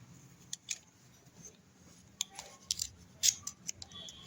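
Irregular sharp clicks and light scraping of small metal parts being handled while a milking-machine pump's vanes and vane slots are cleaned.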